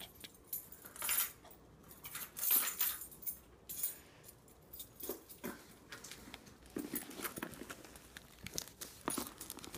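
Handling noise: irregular light scrapes, rustles and knocks as a cardboard package is picked up and handled, with the handheld camera being moved about.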